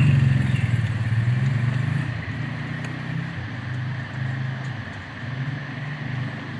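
An engine running, a low hum that is loud at first and then swells and fades every second or so.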